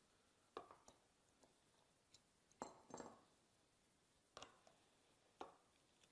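A handful of faint, short clicks and taps, spaced irregularly, of a torque wrench and small metal parts being handled while the wrench is set and readied.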